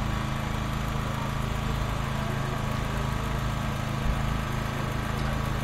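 An engine running steadily at a constant speed, its hum holding the same pitch throughout, with a brief knock about four seconds in.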